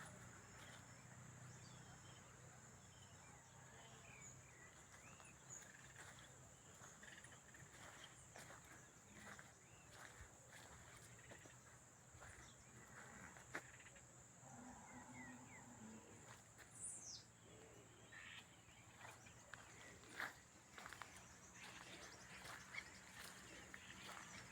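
Faint nature ambience: a steady high-pitched insect drone, with occasional brief bird chirps, small clicks, and one quick falling whistle about 17 seconds in.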